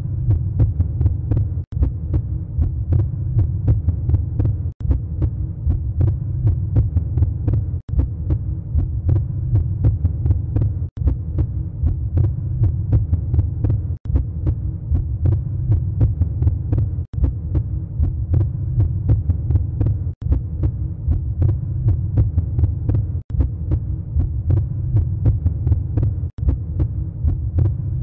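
Heartbeat sound effect, deep pulsing over a low hum, in a short repeating loop that drops out briefly about every three seconds.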